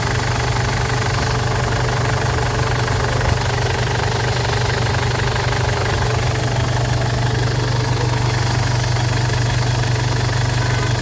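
Ford Everest diesel engine idling steadily after its no-start was cured by a new timing belt, glow plugs and rocker arms; it runs evenly with a constant low hum.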